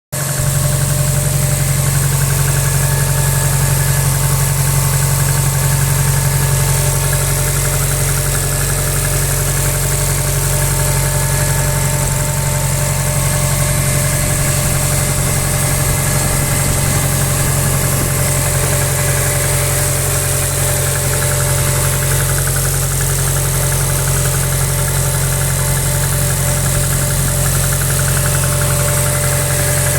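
Subaru EJ202 2.0-litre flat-four engine idling steadily, with a knock whose cause the owner is asking about.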